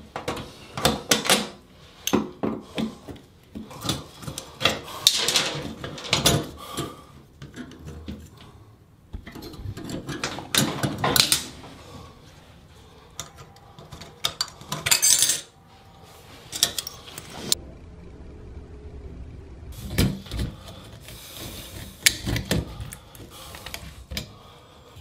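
Metal hand tools clinking, knocking and scraping on chrome bathtub fittings: a screwdriver at the overflow cover plate and a pipe wrench on the tub spout as they are taken off. Irregular short knocks, with a quieter pause about two-thirds of the way through.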